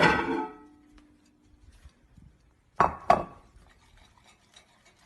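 A ringing plucked-sounding note that dies away over about a second, then two sharp clinks in quick succession.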